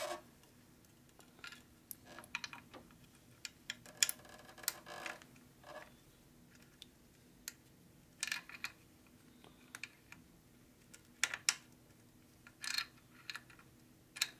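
Scattered light metallic clicks and clinks of washers and bolts handled and seated by hand in the top end of a Harley-Davidson 80 ci Evolution V-twin. They come at irregular intervals, a few louder than the rest.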